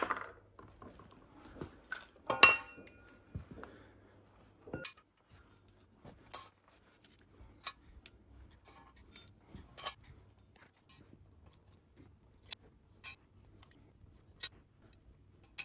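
Small steel valvetrain parts from a Land Rover Td5 cylinder head, rockers and lifters, clinking and ticking as they are handled and set down one at a time, with a louder ringing clink about two seconds in.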